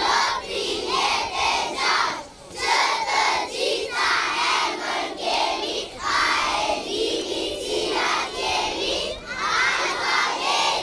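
A group of young children shouting together in chorus, in a run of short, rhythmic bursts like a chant, with brief pauses between phrases.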